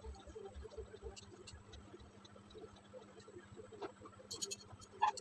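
Faint rustling of a bedsheet being shaken out and spread over a bed, with a few light clicks near the end, over a steady low hum.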